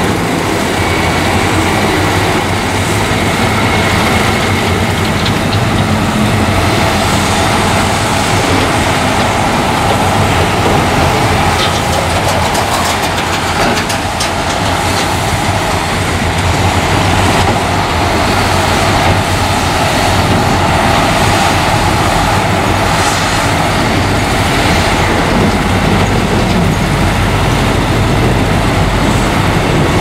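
Heavy diesel engines running steadily under load: a crawler bulldozer pushing soil, with dump truck engines running alongside.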